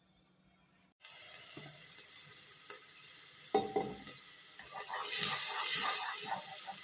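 Kitchen tap turned on about a second in, water running steadily into the sink, with a sharp clatter of kitchenware about halfway through; the water gets louder near the end.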